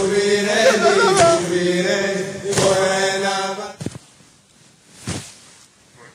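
Voices chanting a refrain over a held droning tone, with one voice gliding up above it about a second in. The chant stops about four seconds in, and a soft thump follows near the end.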